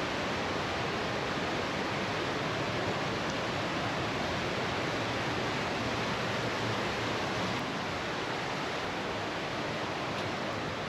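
Fast mountain river water rushing through a narrow rock gorge: a steady, unbroken rush of white water.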